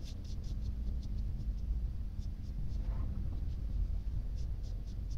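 Paintbrush bristles stroking paint onto a steel wrench handle: a run of soft, quick scratchy brushing ticks over a steady low rumble.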